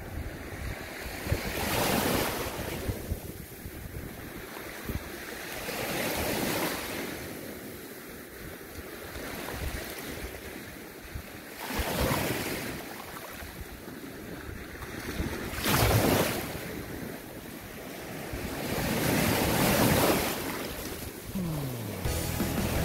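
Small sea waves washing in, swelling and falling back every four to six seconds, with wind buffeting the microphone.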